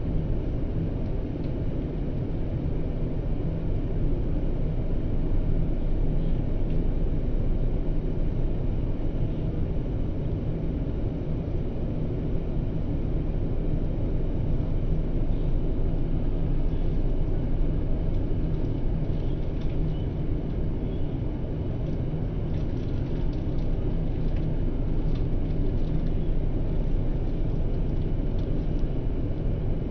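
Steady low drone of an airliner cabin in flight: engine and airflow noise heard from inside the plane.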